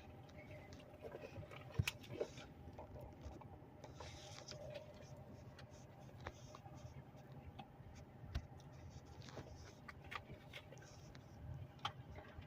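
Faint scattered taps and clicks over a steady low room hum, with a sharper knock about two seconds in and another a little after eight seconds.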